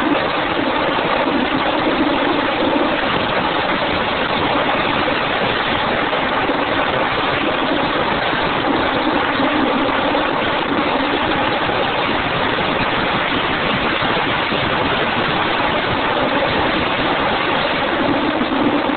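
Subaru Impreza WRX STI driving at a steady pace: a continuous rush of road and wind noise over a low, even engine hum, with no revving or gear changes.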